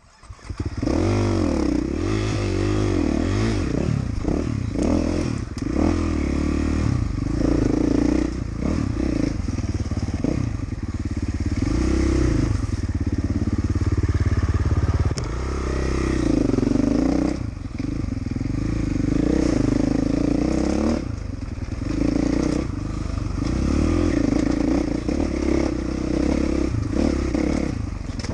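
Dirt bike engine revving up and down with the throttle as the bike is ridden along a rough forest trail, heard close from the rider's helmet.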